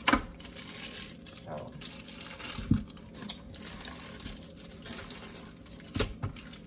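Crinkling and rustling of things being handled, with a sharp knock right at the start, a dull thump about two and a half seconds in, and two quick knocks near the end.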